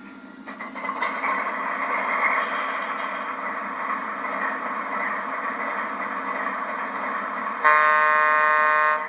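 MTH PA1 model diesel locomotive's onboard sound system starting up: a diesel engine sound builds over the first second and runs steadily. Near the end, one horn blast of over a second, the loudest sound here.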